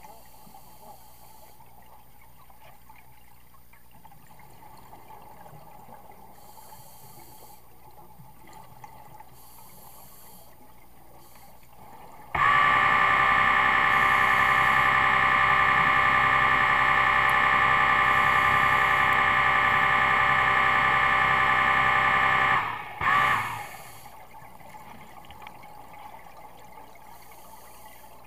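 Underwater recording: faint water and bubbling noise, interrupted about twelve seconds in by a loud, steady buzz with many overtones. The buzz cuts off suddenly about ten seconds later, followed by one short blip.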